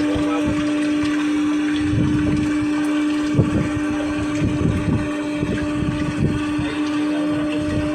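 Anchor winch gearbox running with a steady hum and irregular low knocking underneath. This is the abnormal noise of a dry bushing with no lubrication.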